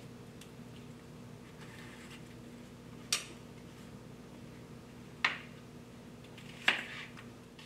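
Kitchen knife striking a plastic cutting board while dicing a red onion: three sharp knocks a couple of seconds apart and a few lighter taps, over a steady low room hum.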